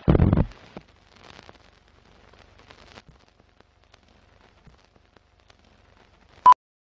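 Film-leader countdown sound effects: a loud low burst at the start, then faint crackling and scattered clicks like old film running, ending in a short, single-pitched beep near the end.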